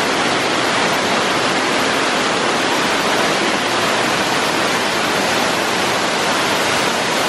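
Artificial waterfalls pouring down the rockwork of a man-made volcano, heard from close below: a loud, steady rush of falling, splashing water.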